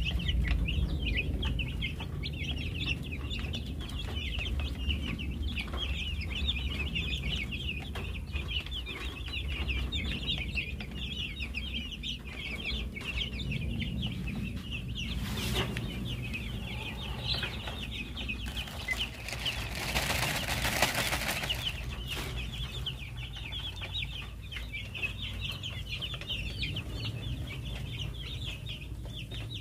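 A flock of young chickens cheeping without pause, many short high peeps overlapping. A brief rush of noise comes about halfway through, and a longer one a few seconds later.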